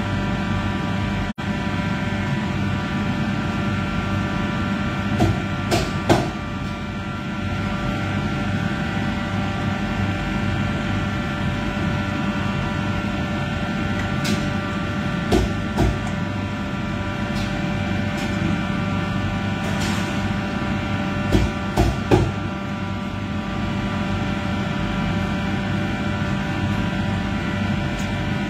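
Steady droning hum of commercial kitchen ventilation, with a few short clinks and knocks of food being handled on the steel trolley at scattered points.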